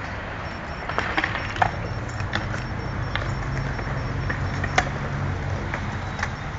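Skateboard wheels rolling on concrete: a low, steady rumble from about a second and a half in, with scattered sharp clicks.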